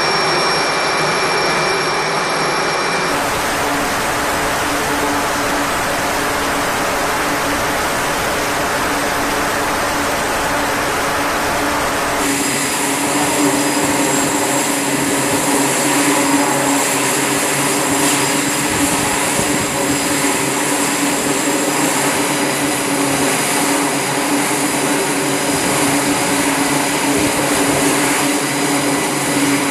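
Steady rushing noise and whine of jet engines running on an aircraft carrier's flight deck. The sound shifts abruptly about three seconds in and again about twelve seconds in.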